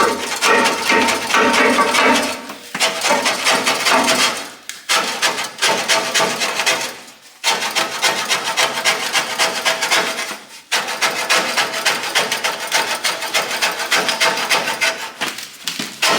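Rapid metal-on-metal striking as old steel boiler fire tubes are collapsed and cut back for removal, with a ringing metallic tone. It comes in several runs broken by short pauses.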